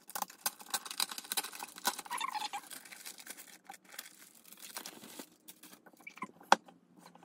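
Thin clear plastic sleeve crinkling and rustling as a large paper brochure is slid out of it, a dense run of small crackles that thins out after about five seconds. One sharp tap near the end.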